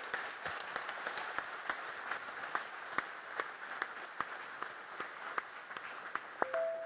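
Audience applauding in a large hall, a dense patter of many hands clapping, with a few sharp individual claps standing out, thinning out and fading near the end.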